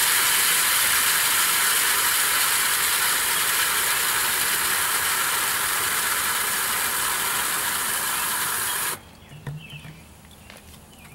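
Water from a garden hose nozzle pouring into a plastic pump sprayer's tank, a steady rushing hiss that cuts off suddenly about nine seconds in when the flow is shut off. A few faint knocks follow.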